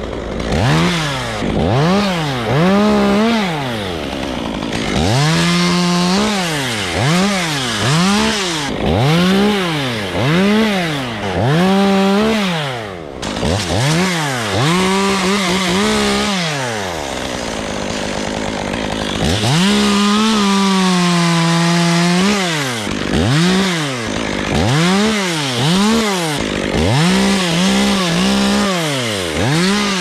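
Top-handle chainsaw revved up and down in quick bursts about once a second, with a few longer stretches held at full speed as it cuts into oak wood.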